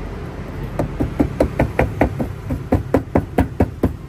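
A hand knocking rapidly on the thin plastic wheel-arch liner of an MG5, about five knocks a second, starting about a second in. The liner is very thin, which lets road noise carry into the cabin.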